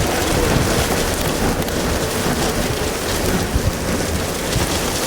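Wind-driven rain and hail from a derecho squall line pelting down in strong wind: a loud, dense, steady noise with a heavy low rumble underneath.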